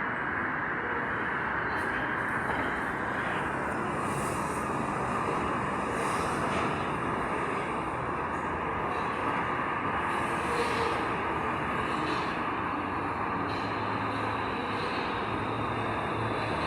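Santiago Metro AS-02 train running on Line 4, heard from inside the car: a steady rolling and motor noise that holds at an even level.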